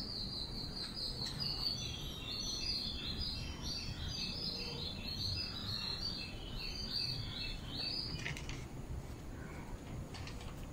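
A small bird chirping, a rapid string of short high notes repeated several times a second, stopping about eight seconds in, over a low steady background noise.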